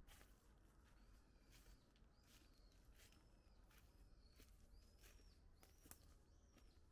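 Faint footsteps crunching through dry fallen leaves on a mountain path, with a bird repeating a short high chirp about once a second.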